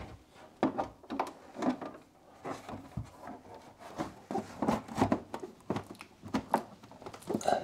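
Irregular knocks, taps and rubbing as the inner cover panel of a Zehnder ComfoAir 200 heat recovery ventilator is handled and pressed into place on the unit.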